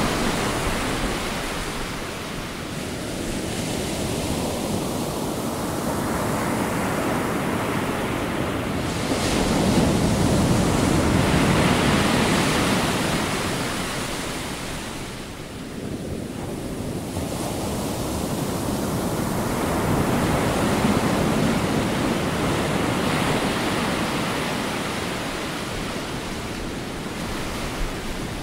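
Surf: heavy swell breaking and washing in as a continuous rush of white water, swelling and easing in slow surges several seconds apart.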